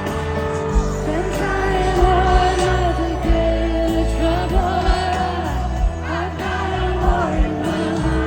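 Live pop music: a female singer holding a sung melody over a full band, with steady bass and a regular beat.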